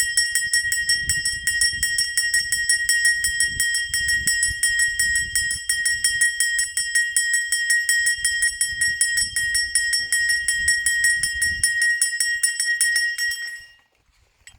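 A bell rung rapidly and continuously, its clapper striking many times a second over a steady ringing tone. It stops near the end.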